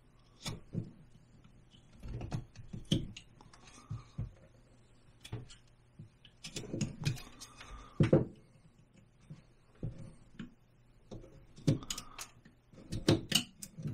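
Carving knife cutting into basswood in short strokes: a run of irregular snicks and scrapes that come in bunches a few seconds apart.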